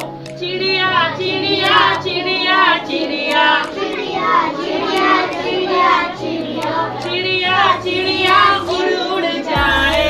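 Group of young children singing a Hindi nursery action rhyme in chorus with a woman's voice leading, the sung phrases repeating in an even rhythm.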